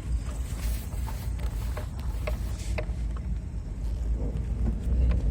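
A vehicle's low, steady rumble with scattered light clicks and creaks, growing louder near the end.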